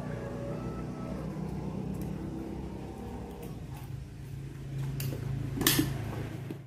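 A steady low mechanical hum, with a few faint clicks and one loud sharp knock about five and a half seconds in; it cuts off suddenly at the end.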